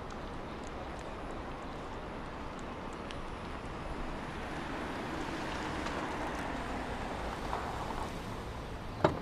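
A small car driving slowly up and pulling in: a steady noise of tyres and running gear that grows a little louder midway. A sharp clunk near the end, a car door opening.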